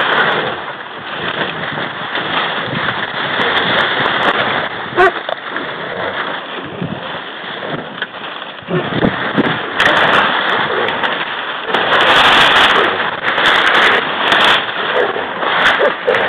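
Saw palmetto fronds scraping and rustling against the microphone and clothing as someone pushes through dense palmetto scrub. The rustling is loud and continuous, swelling loudest about twelve seconds in.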